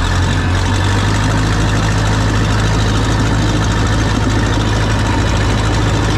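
Case 450 crawler dozer's engine running loud and steady, heard from the operator's seat.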